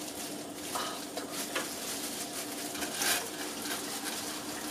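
Soft kitchen handling sounds: light clinks and rustles of utensils and dishes as food is worked by hand, with a few short knocks, over a faint steady hum.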